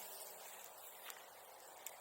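Bonfire crackling faintly under a light hiss, with two sharp pops, the louder one near the end.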